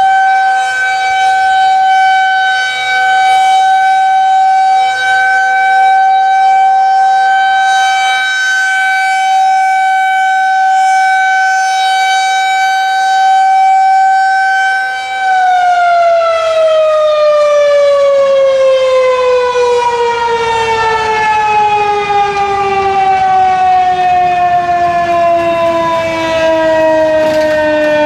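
Federal Signal 2001-130 rotating electromechanical warning siren sounding a loud steady single tone for about fifteen seconds. It then winds down, its pitch falling steadily as the rotor coasts after the test ends, and is still sounding at the end.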